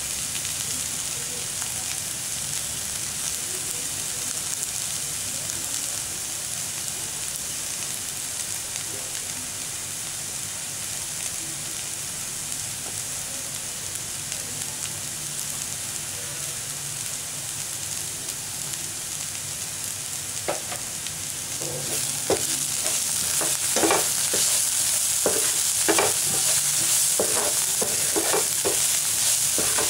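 Chopped onions, green chillies and coriander sizzling steadily in a frying pan. About twenty seconds in, a wooden spatula starts stirring them, scraping and knocking against the pan in a run of quick strokes, and the sizzling gets louder.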